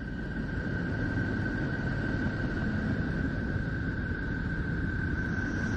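Space sonification played as the sound of Neptune: a steady low rushing noise with one steady tone held above it, and a fainter, higher tone joining near the end.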